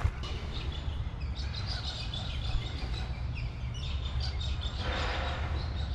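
Birds chirping and twittering over a steady low rumble, with a short rustle about five seconds in.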